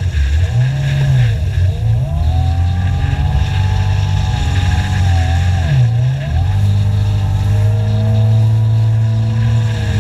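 Kawasaki jet ski engine running under way. Its pitch drops sharply as the throttle is eased off at the start and again about six seconds in, each time rising back to a steady cruise.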